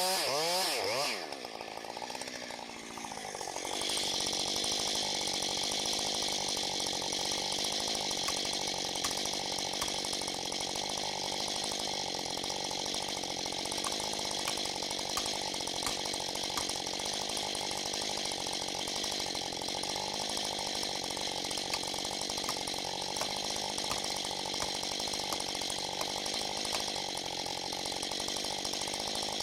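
Husqvarna 545 two-stroke chainsaw revving in quick pulses, dropping briefly, then running steadily at high revs.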